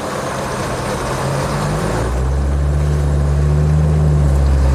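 Land Rover Defender 90's Td5 five-cylinder turbodiesel running under load through deep flowing floodwater, its low engine note growing louder about two seconds in.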